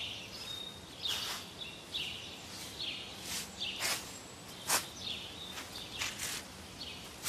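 Footsteps crunching through dry fallen leaves, an uneven step every half second to a second, with small birds chirping.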